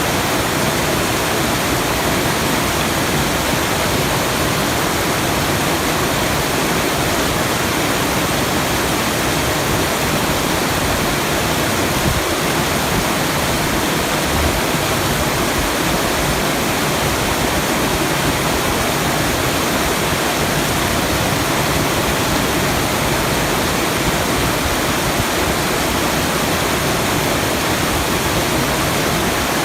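Steady, unchanging rushing noise of a sleep-sound track that sounds like a waterfall.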